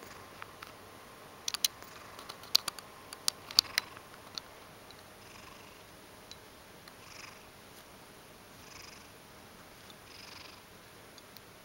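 A ragdoll cat purring close up, swelling faintly with each breath about every one and a half seconds. A quick cluster of sharp clicks falls in the first few seconds.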